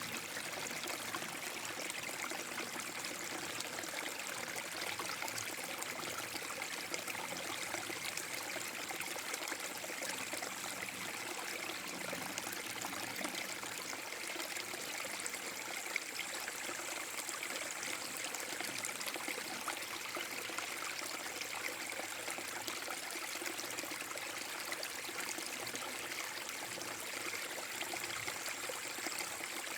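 Small forest brook waterfall: water flowing and splashing over a low drop in a steady, even rush.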